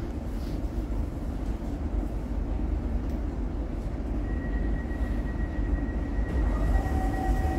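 Steady low rumble and hum of a Cologne Stadtbahn light-rail car standing at an underground platform. A thin, steady high tone comes in about halfway through, and a second, lower tone joins it near the end.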